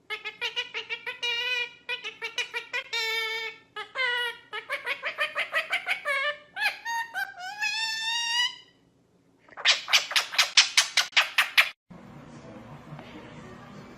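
Pet bird calling in quick runs of pitched chirps that glide upward, then a burst of harsh, scratchy squawks about ten seconds in. It cuts off suddenly near the end, leaving only a low room background.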